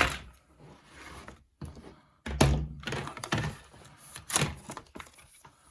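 Things being put down and handled on a table while unpacking: a sharp thunk at the start, then a few more knocks and handling noises.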